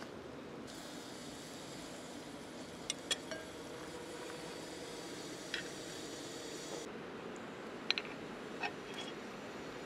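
Soft sizzling hiss with a few sharp crackles and pops from a whole chicken roasting on a spit over charcoal, over a steady low rush; the hiss stops about two-thirds of the way in, leaving the low rush and a couple more clicks.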